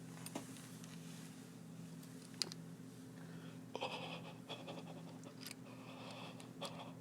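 Faint breathy noises and a few sharp mouth-like clicks from a person close to the microphone, over a steady low electrical hum.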